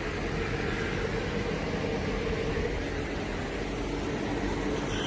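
De'Longhi Pinguino PAC EM82 portable air conditioner running steadily: an even fan whoosh over a constant low hum.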